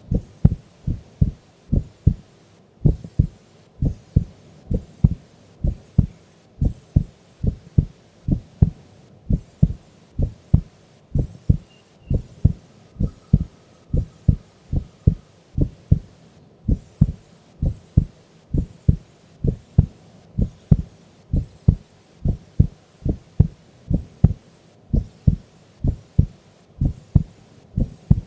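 A sleeping woman's heartbeat: steady, slow double thumps (lub-dub) at about one beat a second, the regular resting rhythm of sleep.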